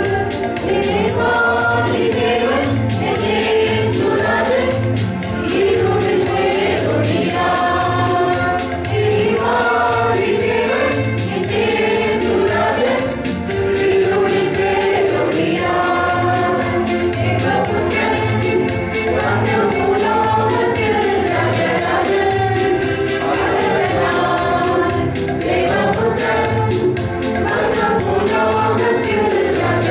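Mixed choir of men and women singing a Tamil Christmas carol together over a steady beat.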